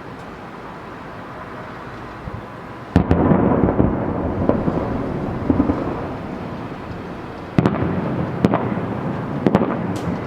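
Fireworks display: aerial shells bursting, with a loud bang about three seconds in and another about halfway through, each trailed by a rumble, and several smaller bangs and sharp cracks between and after.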